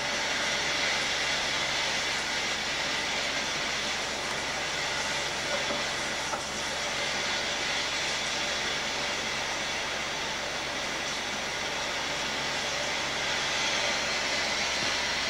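A stormy-weather sound recording played loudly through a speaker: a steady rushing hiss.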